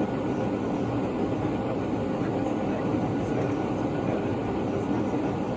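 Steady cabin noise of a Boeing 757 in flight, a constant engine and airflow roar heard from inside the passenger cabin.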